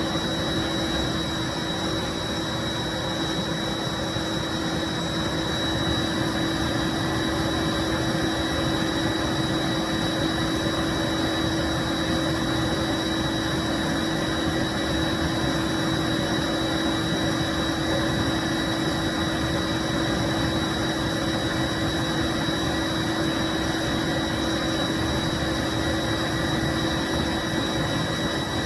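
1995 Bissell SC deep cleaning (carpet cleaning) machine running steadily: an even motor rush with a constant hum and a high, thin whine over it.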